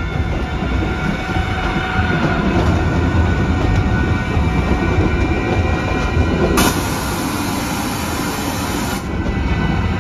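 A narrow-gauge train rolling along the track, heard from aboard the passenger cars as a steady rumble. A loud hiss cuts in sharply past the middle, lasts about two and a half seconds, and stops just as suddenly.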